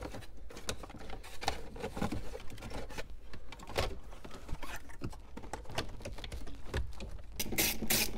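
Wiring harness, connectors and plastic being pushed into a car dash opening: scattered small clicks and rustling. About seven seconds in, a quick even clicking starts, about five clicks a second, from a hand tool turning as the new radio is fastened.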